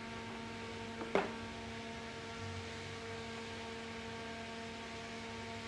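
Steady electrical mains hum with a stack of even tones, and a single light click about a second in.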